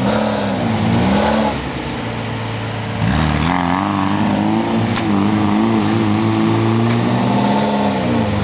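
An off-road vehicle's engine revving hard under load, its pitch climbing and dropping again several times. It eases off for a moment about a second and a half in, then pulls hard again.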